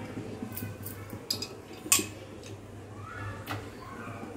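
Metal hand-press lemon squeezer clicking and clinking against a steel pot as it is worked, with one sharp clink about two seconds in, over a low steady hum.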